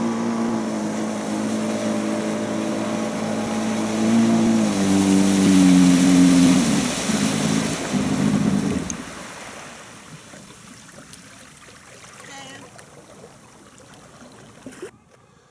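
Personal watercraft (jet ski) engine running under throttle with the hiss of spray, its pitch rising about four seconds in. The engine note breaks up and drops away around nine seconds in as the craft slows, leaving only a faint wash of water.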